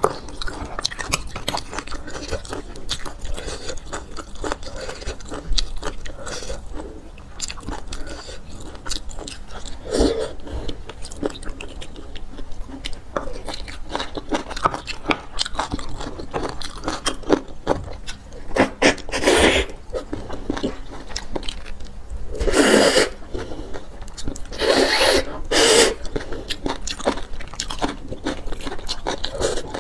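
Close-up eating sounds of a person eating braised marrow bones: wet chewing and lip smacks with many small clicks, the spoon scraping marrow from the bone, and a few louder, longer sucking sounds in the second half as marrow is drawn out of the bones.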